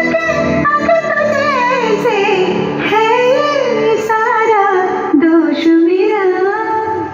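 A song with one voice singing a slow melody with sliding, ornamented held notes over instrumental backing, the dance music for the performance; it stops near the end.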